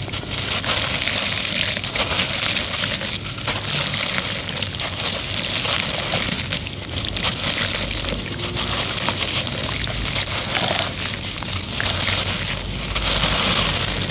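Cement being crushed and crumbled: a dense, gritty crunching and crackling made of many small snaps, easing off briefly a few times.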